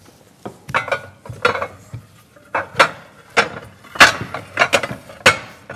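Kitchenware being handled: dishes and utensils knocking and clinking together in a string of sharp clinks at irregular intervals, some with a brief ring.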